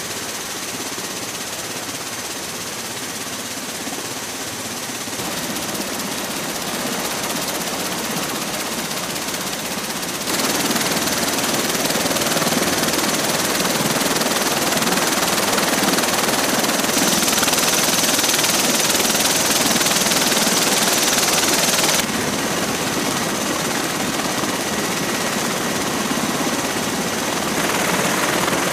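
MV-22 Osprey tiltrotors running with rotors turning: a loud, steady rush of rotor and turboshaft engine noise with a thin high whine. The level jumps up or down abruptly a few times.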